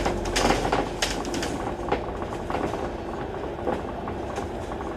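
Cabin of a moving Alexander Dennis Enviro500 MMC double-decker bus: a steady low rumble of engine and road, with clattering rattles and clicks from the body and fittings, heaviest in the first second and a half.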